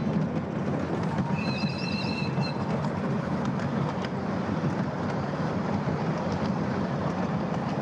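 7¼-inch gauge miniature railway carriages running along the track: a steady rumble of wheels on rail with light clicking. A brief high squeal comes about a second and a half in.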